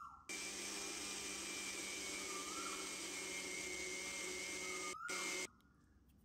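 Electric mixer grinder running, grinding soaked green gram into batter in its stainless steel jar: a steady whir with a high whine. It breaks off for a moment and then stops suddenly near the end.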